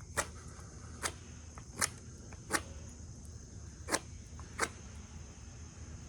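Six sharp, separate clicks, well under a second to about a second and a half apart, over a steady high insect drone.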